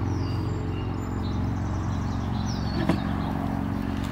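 Steady low hum, with a bird calling twice, a short falling whistle each time, and one sharp click about three seconds in.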